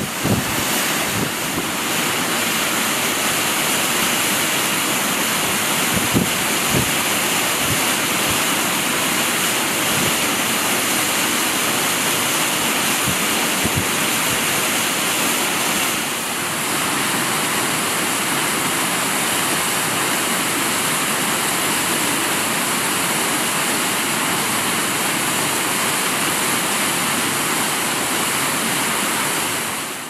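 Steady rush of water from the Korbu waterfall, still falling beneath its shell of ice into the open pool below. It fades out near the end.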